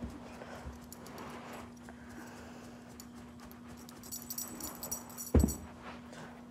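Soft rustling and handling on carpet over a faint steady hum, with a light metallic jingle about four seconds in and a single thump a little after five seconds.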